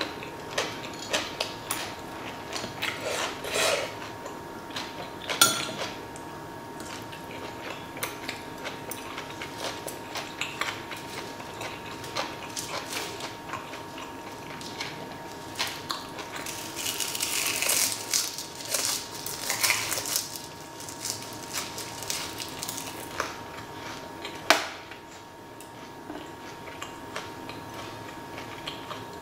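Close-up mukbang eating sounds: cabbage wraps and vegetables bitten and chewed, with metal chopsticks clicking against stainless steel trays and a bowl. Many small clicks, with a couple of sharper clacks among them.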